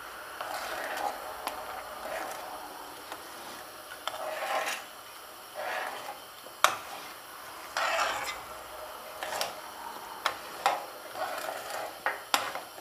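A metal utensil stirring a thin broth in a nonstick frying pan, swishing and scraping around the pan in repeated swells, with sharp clicks now and then as it knocks the pan. The stirring is dissolving palm sugar just added to the sour tamarind broth.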